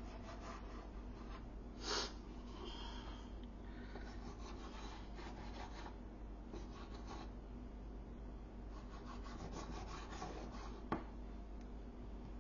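Kitchen knife cutting through soft bread-roll dough and scraping the work surface beneath in repeated strokes, with a short louder scrape about two seconds in and a sharp click near the end.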